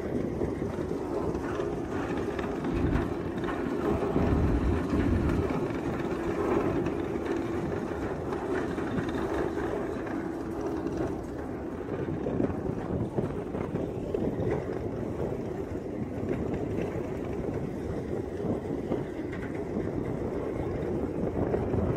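Deck ambience aboard a large ship: a steady hum with a held low tone for about the first half, and wind buffeting the microphone in low rumbles a few seconds in.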